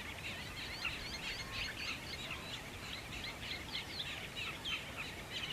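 Many birds chirping and calling together, a dense stream of short, high, quick notes over a faint steady background noise.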